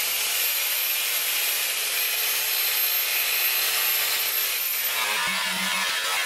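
7-inch electric rotary polisher running, its buffing pad loaded with brown rouge rubbing across an aluminum bumper in the first cut-and-color pass. A steady high motor whine over a constant buffing hiss, with a change in the sound about five seconds in.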